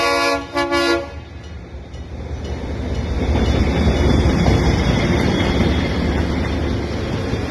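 A DF7G-C diesel locomotive's horn sounds a multi-tone chord that cuts off about a second in. The deep rumble of the diesel-electric locomotives then builds up as the train comes by.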